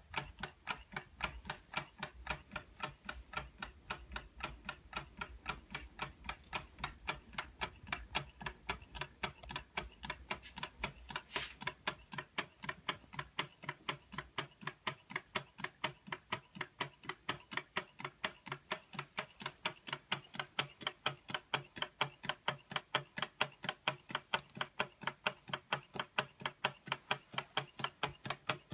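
Early Carette hot-air (Stirling) engine running on its spirit lamp, its linkage and crank knocking out a steady rhythm of sharp clicks, a few a second.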